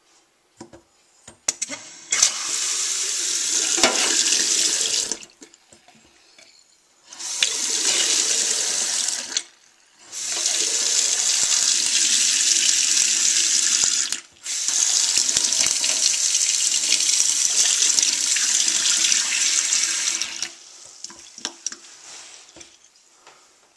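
Water running from a newly installed kitchen faucet into a stainless steel sink, turned on and off: four spells of a few seconds each, the last two only a moment apart.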